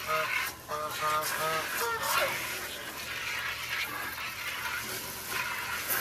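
Geese honking a few short times in the first two seconds, over the steady hiss of a garden hose running water into a container. The hiss carries on alone after the honks stop.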